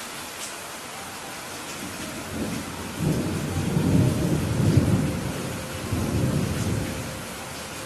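Steady heavy rain with a rolling thunder rumble that builds about two seconds in, swells in two waves through the middle and fades out near the end.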